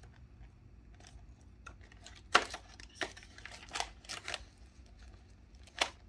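Banknotes and a clear vellum cash envelope in a binder rustling and crinkling as cash is stuffed into the envelope. It comes as a handful of short, sharp crackles, the loudest about two and a half seconds in.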